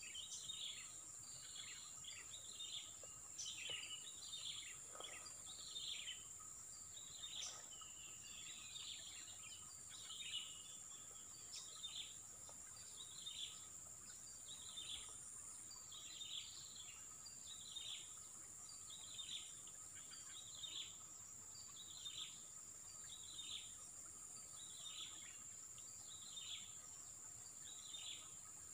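Faint outdoor ambience: a bird repeats a short falling call about once a second over a steady high-pitched insect drone.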